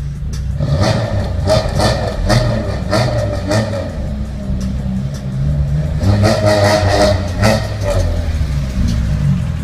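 Peugeot 306's engine revved repeatedly as the car rolls slowly closer, in two spells of surges, with faint music under it.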